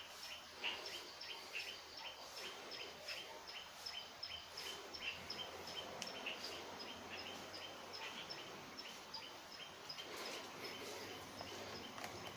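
Faint chirping of a small bird: a short call repeated steadily, about three times a second, over light background hum.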